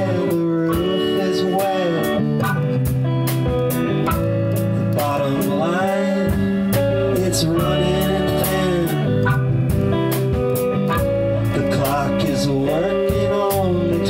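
A band playing a guitar-led blues-rock song. Guitar notes bend in pitch over steady bass and drums with cymbals.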